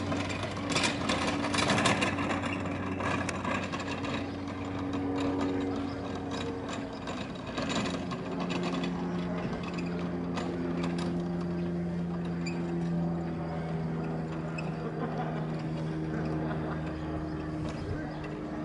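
A steady engine hum whose pitch shifts a few times around the middle, under scattered light clicks and knocks and some voices.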